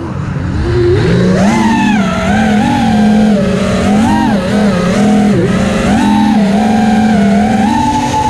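FPV quadcopter's brushless motors and propellers whining. The pitch climbs about a second in, then holds high with small rises and dips as the throttle is worked.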